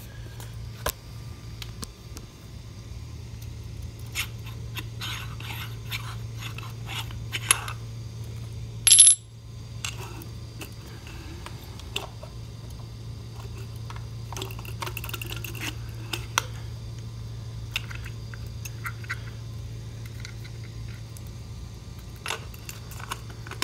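Hands handling a model truck's aluminium fuel-tank housing and a battery pack: scattered small clicks, taps and scrapes, with one loud, short metallic ring about nine seconds in. A steady low hum runs underneath.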